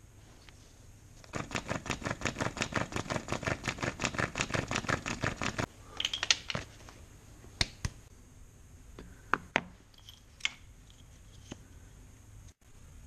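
Bow drill with a bamboo bit grinding into a block of soapstone: a fast, even rasping that pulses with each back-and-forth stroke of the bow for about four seconds, then stops. A few scattered clicks and knocks follow.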